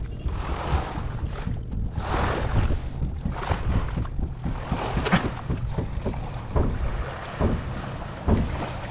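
Wind rumbling on the microphone over washing surf. From about three seconds in come short crackles and rustles as tangled rope fibres are pulled apart by hand.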